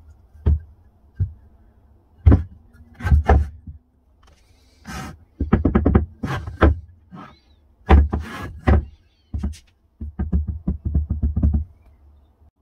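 A heavy block of green oak knocking and clattering against a plywood workbench as it is handled and turned over: single knocks in the first few seconds, then rapid runs of knocks about halfway through and again near the end.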